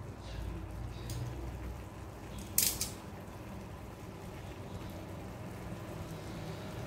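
Kitchen handling noises over a low steady hum: a short sharp clack about two and a half seconds in, with a fainter one about a second in.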